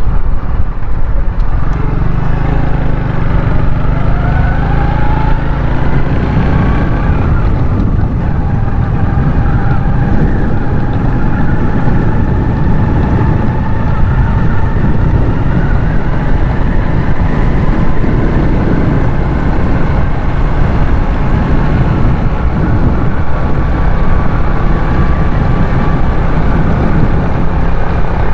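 Motorcycle engine running while riding, with wind rushing over the helmet or handlebar microphone; the engine pitch rises and falls a little with speed.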